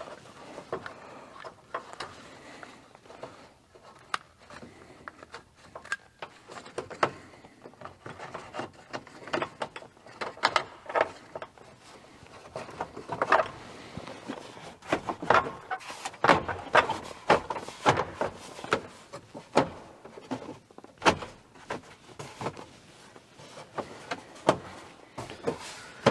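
Plastic dashboard trim panels on a pickup truck being handled and pressed back into place by hand: a long run of irregular clicks, knocks and rattles, busier and louder in the second half.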